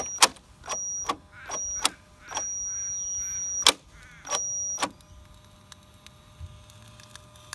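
The motor of an Axial SCX10 II RC crawler whines in about five short bursts of throttle, each starting and stopping with a click, the longest about a second. The whine is steady and high and does not rise: the motor is jammed and burning out, which the owner puts down to something stuck in it. Near the end only a faint low hum remains.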